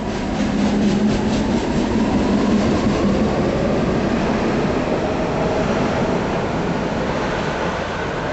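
PATCO Speedline train pulling out along the platform. The wheels click rhythmically over the rail joints, loudest in the first few seconds, under a slowly rising motor whine. The sound fades as the last car moves away.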